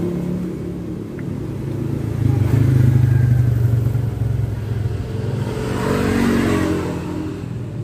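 A motor vehicle engine running with a low, steady hum, growing louder about two and a half seconds in and then easing off.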